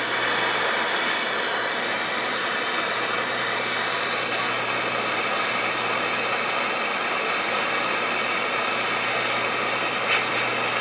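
Jeweller's soldering torch burning with a steady hiss as its blue flame heats a silver filigree joint so the solder fed from a solder pick will flow.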